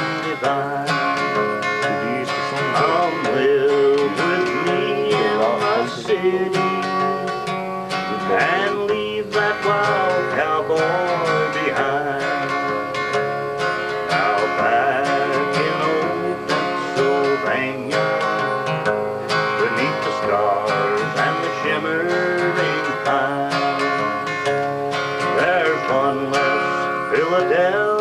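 Acoustic guitar strummed steadily, accompanying a man singing a country song.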